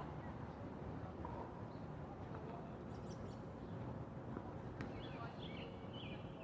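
Steady outdoor background noise with small birds chirping, a quick run of short chirps near the end, and a single sharp click about five seconds in.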